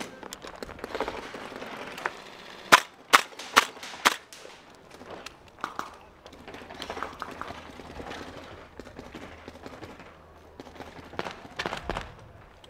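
Airsoft guns firing: four loud, sharp shots in quick succession about three to four seconds in, with fainter scattered shots later on.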